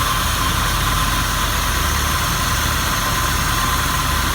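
Renault Logan's 1.6-litre eight-valve engine idling steadily, held at a slightly raised fast idle while it warms up from cold.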